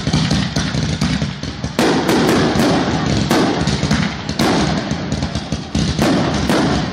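Fireworks going off in a rapid barrage: many sharp bangs and pops in quick succession over a continuous crackle, getting denser and louder about two seconds in.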